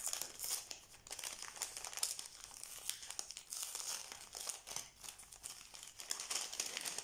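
A small paper-and-plastic wrapped package being unwrapped by hand: steady irregular crinkling and rustling of the wrapping, with some tearing.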